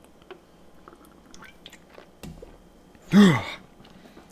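Faint chewing and small mouth and handling noises from a person eating. About three seconds in comes one short, loud vocal sound whose pitch rises and then falls.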